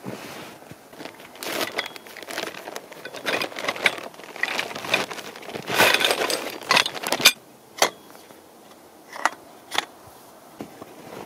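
Canvas tent fabric and a cloth pole bag rustling and scraping as they are handled, followed in the second half by four sharp metallic clinks from a metal tent pole being handled and fitted together.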